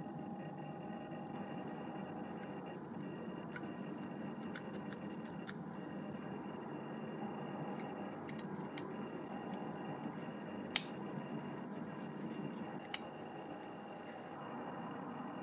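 Small plastic and metal model-car parts being handled, with light scattered ticks and two sharper clicks in the second half, over a steady background hum.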